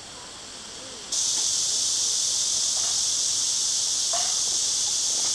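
A steady chorus of crickets: an even, high-pitched shrill that starts suddenly about a second in.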